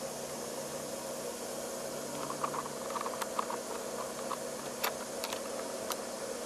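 Small clicks and tinks of a brass gas fitting being handled and fitted by hand onto the end of a corrugated stainless steel gas line, a run of light ticks about two seconds in and a few single sharper clicks near the end, over a steady background hum.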